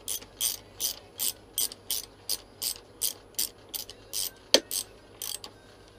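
Hand socket ratchet clicking as it winds a greased 10 mm bolt into a motorcycle rear brake caliper: an even run of pawl clicks, about two to three a second, with one sharper click about four and a half seconds in, stopping shortly before the end.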